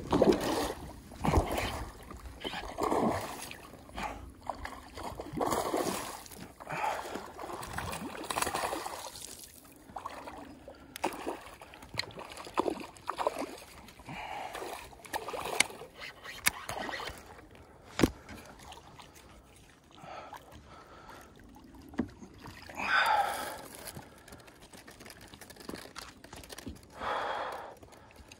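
Noises of landing a largemouth bass in a kayak: irregular knocks, rustles and sharp clicks from handling the rod and gear, light splashing, and gasps of breath.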